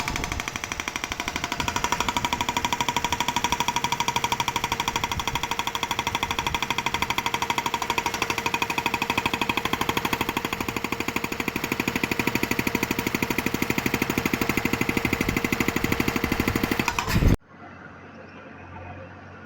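JCB HM380 hydraulic rock breaker on a JCB 3DX backhoe hammering hard rock in a rapid, steady stream of ringing blows, then stopping abruptly near the end.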